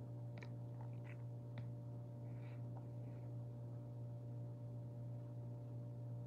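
A steady low hum with faint steady tones above it. A few faint clicks and soft rustles come in the first three seconds.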